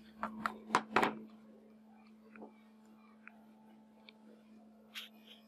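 Sharp plastic clicks and knocks of a Samsung B310E feature phone being handled, four in quick succession in the first second, then a few light ticks and one brief click near the end as its keys are pressed. A steady low hum runs underneath.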